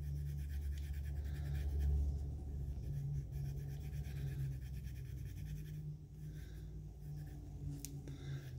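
Alcohol-dampened microfiber cloth rubbing back and forth on the plastic chest of an action figure to scrub off painted-on smudging. The rubbing is a soft scrubbing that comes and goes over a low steady hum. There is one sharp click near the end.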